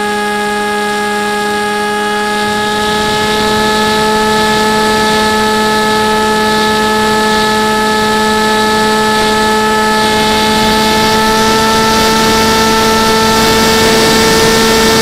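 Motor and propeller of an FPV model plane heard through its onboard camera: a steady whining hum made of several even tones, edging up in pitch near the end. Rushing air noise grows over it in the second half as the plane pitches nose-down.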